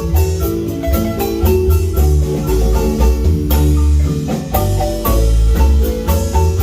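Marimba band playing a fast tune: quick runs of mallet notes over heavy bass notes and a steady beat of sharp cymbal-like hits.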